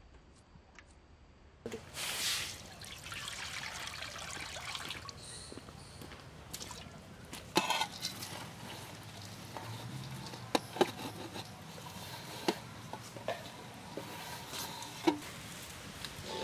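Steel wok on a wood-fired clay stove with chopped chickpea spinach being tipped in from a steel plate. A hiss starts suddenly about two seconds in and carries on, with a brief scrape about halfway through and a series of sharp clicks and taps near the end.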